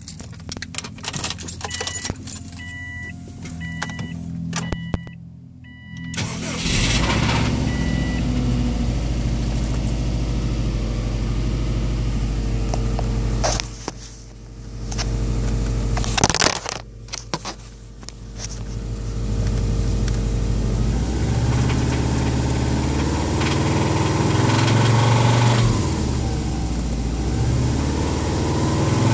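Keys rattling and a repeating electronic chime beeping about once a second, then about six seconds in the 2004 Subaru WRX's turbocharged flat-four starts and runs, rising in level later on. The owner hears a knock-like noise from around the engine, not the exhaust, at idle and at 3-4k rpm.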